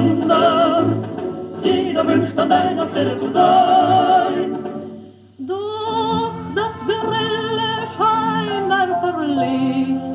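Orchestral dance-band music played from an old record on a radio-gramophone: an instrumental passage with wavering held notes over a steady low beat. The music falls away briefly about five seconds in, then a new phrase starts up.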